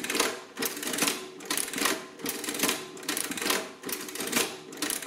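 Victor series 2 printing adding machine being cycled by its hand lever several times in quick succession. Each pull and return gives a burst of ratcheting, clattering mechanism noise. The repeat button is locked down, so the same number is added and printed on every pull, multiplying it by repeated addition.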